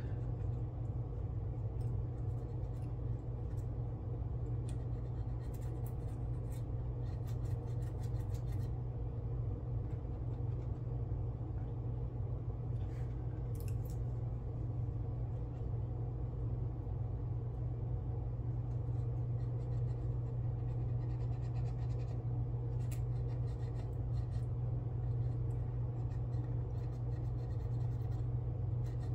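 A cotton swab rubbing Bare-Metal Foil down onto a plastic model exhaust, giving faint, intermittent scratching, over a steady low hum.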